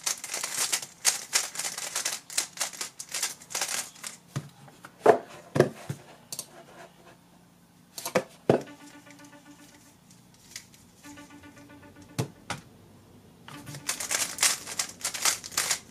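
GAN 11 M Duo 3x3 speedcube being turned fast, its layers clacking in rapid runs, with a few sharper knocks of the cube and cover being set down on the mat and a quieter stretch in the middle.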